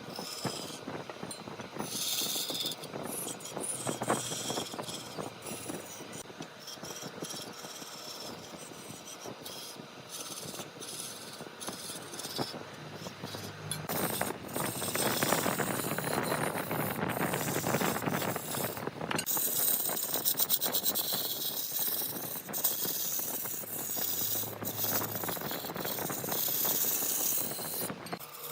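Large wood lathe running while a turning tool cuts the spinning wood: a rough scraping and rattling noise with scattered clicks, growing louder for a few seconds midway.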